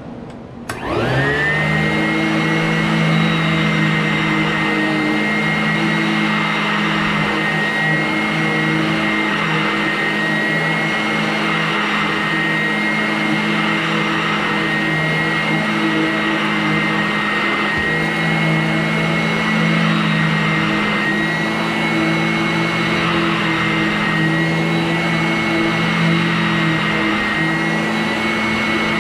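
Vacuum cleaner switched on with a click less than a second in, its motor whining up to speed, then running steadily with a high whine.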